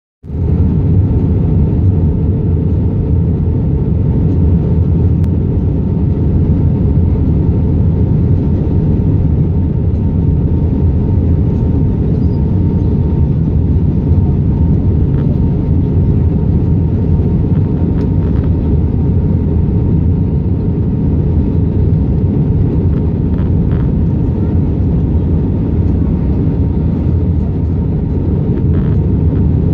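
Cabin noise inside an Airbus A319-132 on descent, heard from a window seat by the wing: a steady, loud roar of the IAE V2500 turbofans and the airflow past the fuselage, deep and even, with a faint steady hum over it.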